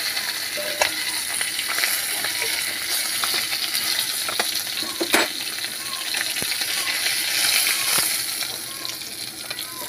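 Tilapia pieces sizzling in hot oil in a metal kadai, a steady hiss, while a metal spatula scrapes and clicks against the pan as the fried fish is lifted out, with one sharp clank about five seconds in. The sizzle eases off near the end.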